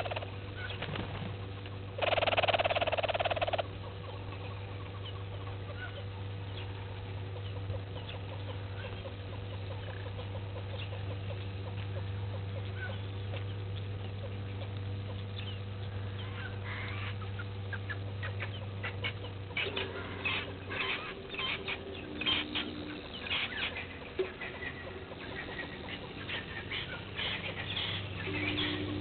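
Birds calling outdoors: scattered short chirps and clicks, thickest in the last ten seconds, over a steady low hum. A loud rushing noise lasts about a second and a half just after the start.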